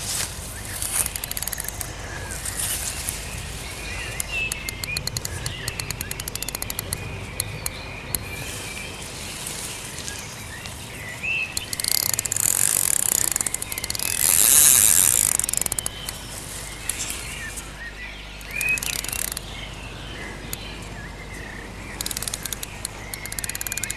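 Small birds chirping, with spells of rapid ticking and a loud hissing rush a little past halfway.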